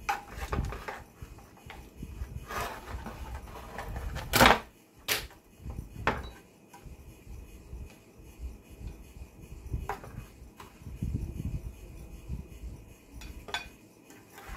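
A slotted spatula scraping and knocking in a metal roasting tray and against a ceramic plate as roasted potatoes are scooped onto the plate: scattered scrapes and clinks, the loudest about four and a half seconds in.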